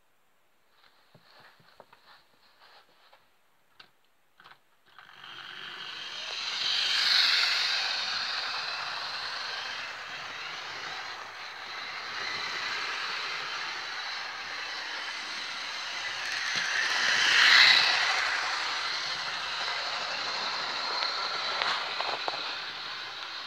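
Hornby model steam locomotive running on the track, its small electric motor whirring and its wheels running on the rails. The sound starts about five seconds in and swells louder twice as the train passes close by. A few faint clicks come before it.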